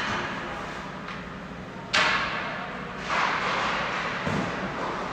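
Ice hockey play: a sharp bang against the rink boards about two seconds in, echoing through the arena, then a rise in the rush of play and a duller knock a little after four seconds.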